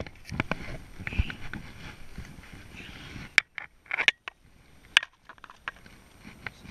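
Handling noise from fly casting in a small boat: scattered sharp clicks, scrapes and rustles close to the microphone. The loudest are a few sharp snaps about halfway through and again a second later.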